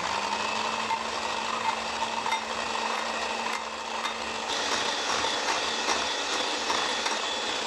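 Electric hand mixer running steadily, its wire beaters whipping chilled cream in a glass bowl until it holds stiff peaks. The tone shifts about halfway through.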